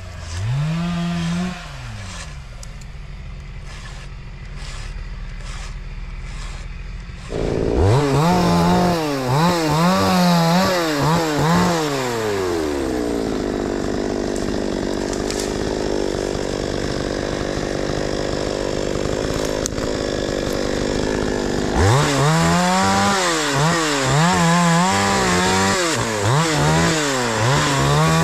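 Two-stroke chainsaw running low, then revved hard in repeated throttle blips about seven seconds in. It settles into a long, steady run under load as it cuts through wood for about ten seconds, and goes back to revving in blips near the end.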